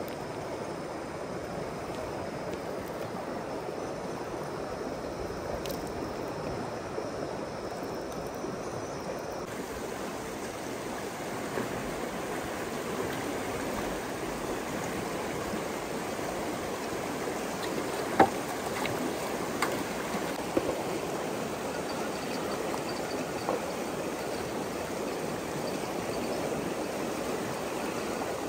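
Steady rushing of flowing water, with a few sharp clicks or knocks near the middle, the loudest about 18 seconds in.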